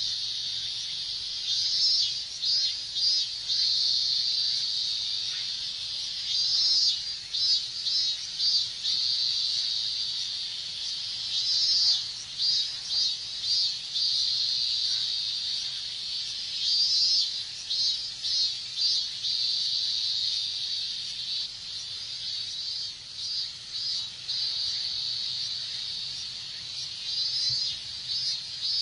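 Chorus of cicadas, including robust cicadas (minmin-zemi): a steady high buzz with a pulsed phrase of several beats rising out of it about every five seconds.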